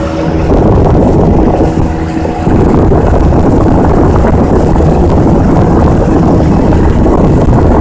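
Boat motor running under way, with wind buffeting the microphone in a loud, steady rush.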